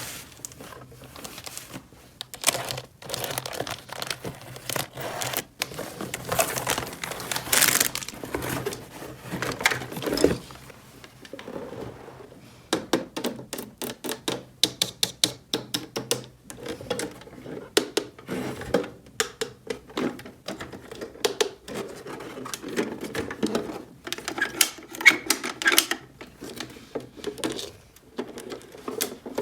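Hands handling small plastic toy pieces: many light clicks and taps, some in quick runs, with rustling and crinkling in between.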